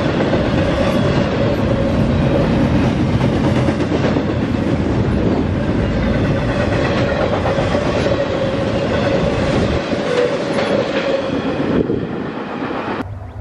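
Double-stack intermodal freight train's cars rolling past on steel wheels, a dense clatter over the rails with a steady whine running under it. The noise fades as the last car goes by and drops off suddenly near the end.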